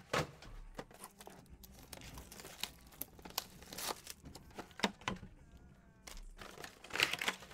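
Cardboard trading-card boxes and cards handled on a tabletop: irregular rustling, sliding and light taps, with a few sharper knocks as boxes are set down.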